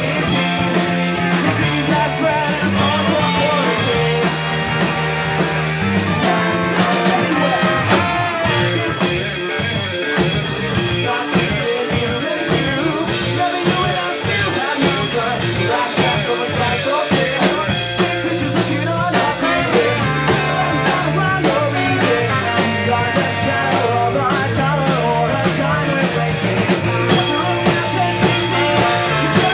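Ska-punk band playing a song live, loud and continuous, with a full band of guitar, bass and drums.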